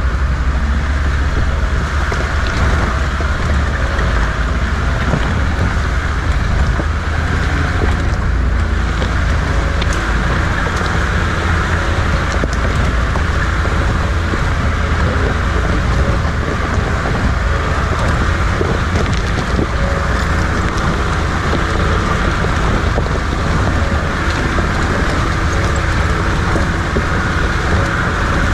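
Open-sided safari jeep driving over a rough dirt track, heard from inside: steady engine and road noise with a strong low rumble.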